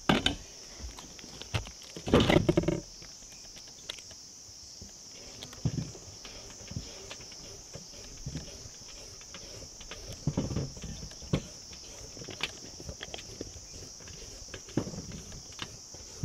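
Steady high-pitched drone of insects, with scattered clicks and knocks over it, the loudest about two seconds in.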